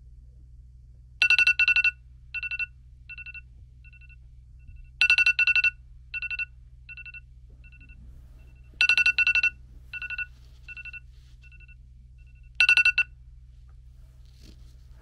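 Smartphone alarm ringing: a pair of loud electronic beeps followed by fainter, fading repeats, the pattern coming round about every four seconds. It plays four times and then stops as the alarm is switched off.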